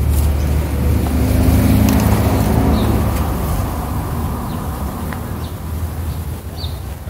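A motor vehicle's engine running, a low hum that is loudest in the first few seconds and then fades away.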